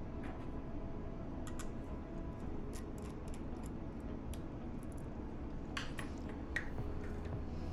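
Scattered light clicks and ticks of small metal hand tools working on an open hard drive's head assembly and parts, over a steady low hum. The sharpest clicks come about six seconds in.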